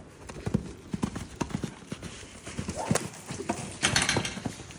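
Horse's hoofbeats at a canter on the lunge line, a quick uneven run of strikes. A brief rush of noise about four seconds in.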